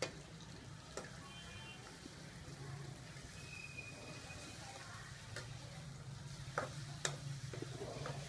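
Fish frying with lemongrass in a wok, sizzling steadily while a metal spoon stirs it, clinking sharply against the pan a few times. A steady low hum runs underneath.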